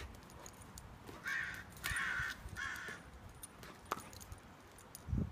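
Three harsh caw-like calls in quick succession, starting a little over a second in, each about half a second long. Scattered sharp clicks come from a puppy's claws and a plush toy on stone patio tiles, with a dull thump near the end.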